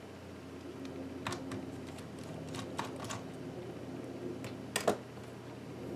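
Small screwdriver working a screw out of an iBook G4's case: a few scattered light clicks and taps of metal on plastic, the loudest a quick double click near the end.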